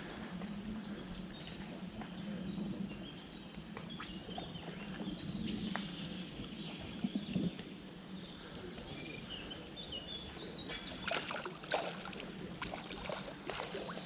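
Birds chirping over a low steady hum, with a few sharp clicks near the end.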